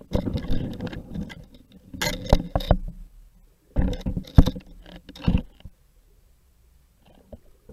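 Underwater clatter of knocks, clicks and scrapes, as heard through a camera's waterproof housing on the seabed. It comes in three bursts of rapid knocking, with fainter knocks near the end.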